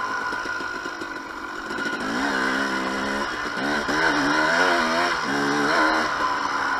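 2007 KTM 250 XC-W's single-cylinder two-stroke engine under throttle, its pitch climbing from about two seconds in and then rising and falling several times in quick succession as the throttle is worked.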